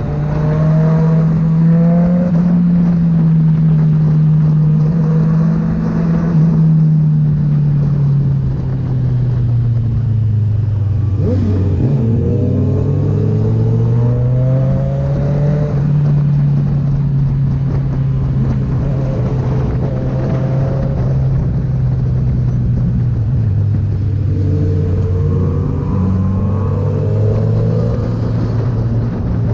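Kawasaki Z900 inline-four running through a Firetong aftermarket exhaust. Its engine note slowly drops, climbs again and settles, with a few short pitch sweeps about a third of the way in and again near the end.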